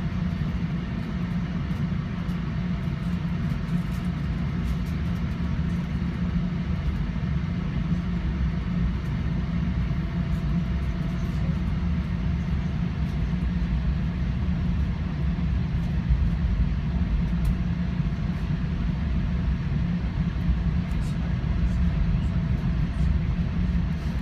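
Steady low rumble of a Caltrain commuter train heard from inside a passenger car as it rolls out of the station, with scattered faint clicks.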